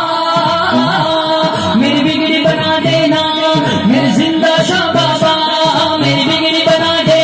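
A manqabat, a Sufi devotional song, sung by a voice over instrumental accompaniment with steady held notes.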